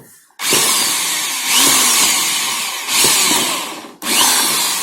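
Electric hand drill boring a hole in a car's air filter housing. It starts about half a second in, runs in three or four loud spells with brief drops near 3 and 4 seconds, then winds down and fades near the end.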